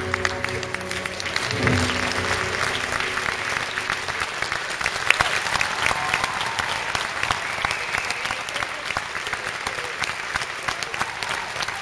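Audience applauding, a dense steady clapping at the end of a figure skating programme, with the last of the programme music ending about two seconds in.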